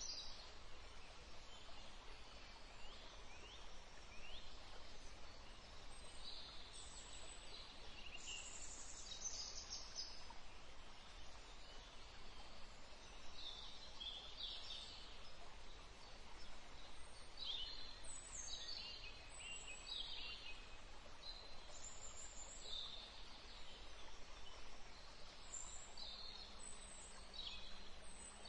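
Birds singing: clusters of short, high-pitched, falling chirps that recur every few seconds over a faint, steady background noise.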